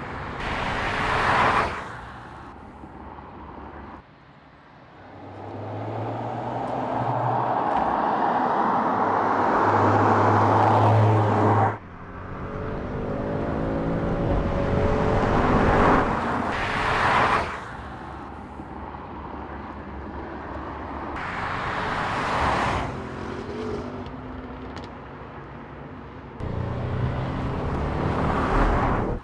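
Audi S4 Avant with its 3.0-litre turbocharged V6, in a run of roadside drive-bys. The car approaches and passes several times, each pass swelling in engine and tyre noise, and on some passes the engine note climbs as it accelerates. The sound breaks off abruptly between shots.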